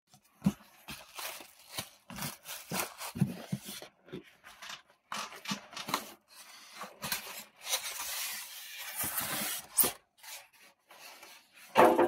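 Clear plastic wrap and packaging being handled and pulled about, crinkling and rustling in irregular crackles, with a longer stretch of rustling about eight seconds in.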